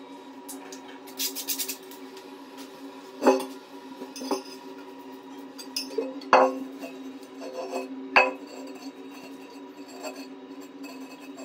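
Ceramic toilet being handled and set down on a tiled floor: sharp clinks and knocks of hard ceramic on tile, the loudest about three, six and eight seconds in, over a steady hum.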